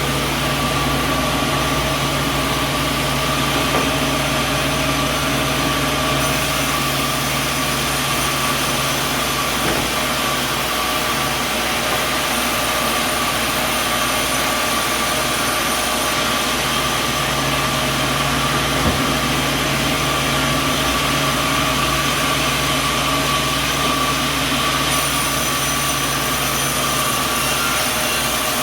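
Sawmill machinery running with a steady mechanical drone and hum; a low hum drops out for several seconds in the middle and then returns.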